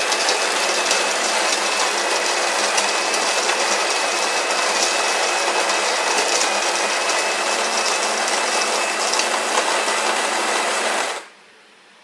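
The SMEG EGF03 espresso machine's built-in grinder is running, grinding a single dose of about 18 g of beans into a dosing cup. It makes a steady whirring with a thin high whine, and stops abruptly about eleven seconds in.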